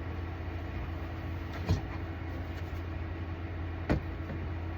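A steady low hum, with two short sharp knocks about two seconds apart.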